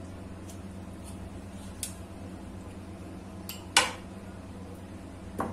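A few light clicks and knocks of a kitchen knife against a plastic plate while a mango is peeled by hand, the loudest a sharp knock about four seconds in and another near the end. A steady low hum runs underneath.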